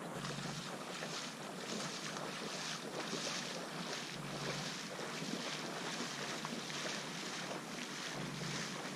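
Footsteps swishing through water or brush, about two to three a second, over steady wind noise on the microphone.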